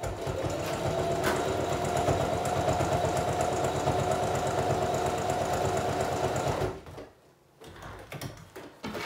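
Singer electric sewing machine stitching through a denim vest and patch, running steadily for about seven seconds with a motor whine over rapid needle strokes, then stopping.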